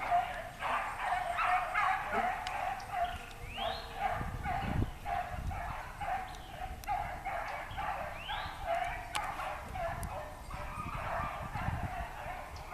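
A pack of rabbit hounds baying in chorus, the calls following one after another a few times a second as they run a rabbit's track.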